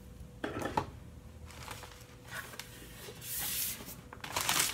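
Plastic packaging film being cut and pulled off a Cricut Maker cutting machine: a series of short rustling scrapes, the longest and loudest near the end.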